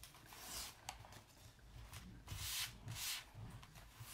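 Hand rubbing over a Chalk Couture adhesive transfer on a cloth: several short, soft rubbing swishes.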